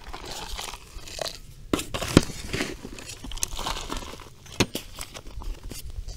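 Coarse, lumpy soil being scooped with a metal hand trowel from a plastic bucket and packed into a small plastic pot by hand: crunching, scraping and rustling of earth and plastic, with a few sharp knocks, the loudest about two seconds in.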